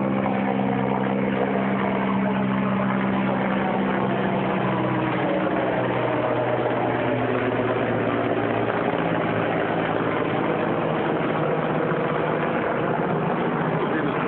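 An engine running steadily with a constant low hum, its tone shifting slightly about halfway through.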